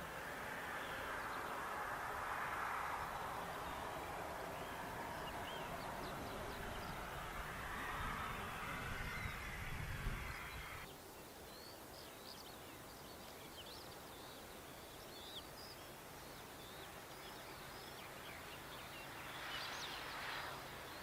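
Outdoor background: a steady hiss with many short bird chirps. A low rumble swells about eight to ten seconds in, then the background drops abruptly to a quieter hiss about halfway through.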